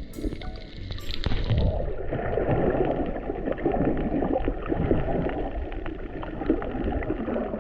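Water gurgling and crackling with a dense, even patter of small ticks, as picked up by a camera in or at the surface of the water while snorkelling.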